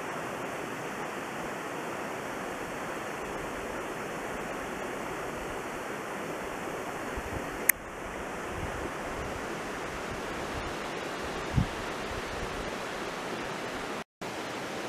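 Mountain stream running: a steady rush of water. A sharp click comes about halfway through and a short low thud a few seconds later, and the sound drops out for a moment near the end.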